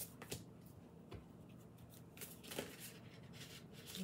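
Tarot cards being shuffled by hand: a few soft, irregularly spaced card snaps and slides.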